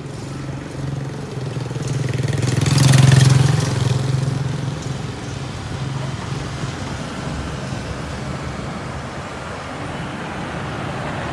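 Motor vehicle traffic: a steady low engine hum with road noise, swelling to its loudest about three seconds in and then settling back to a steady rumble.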